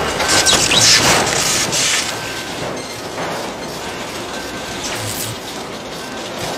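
Office photocopier running: a steady mechanical whirr and rattle, loudest in the first couple of seconds.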